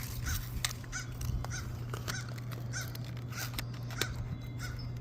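A bird calling over and over, a short rising-and-falling chirp about three times a second, with scattered clicks and crinkles of toy packaging being handled and opened.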